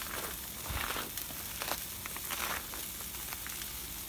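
Salmon fillets sizzling in oil in a frying pan, with scattered crackles and pops.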